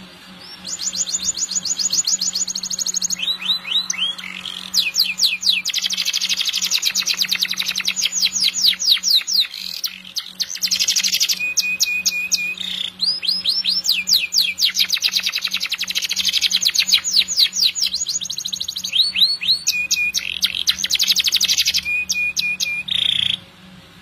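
Domestic canary singing one long song of fast trills, each a rapid run of repeated notes, with short breaks in between. It starts about a second in and stops shortly before the end.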